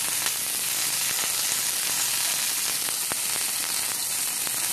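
Monkey head mushroom steak sizzling in oil in a non-stick frying pan, pressed down under a slotted spatula: a steady hiss with scattered small pops.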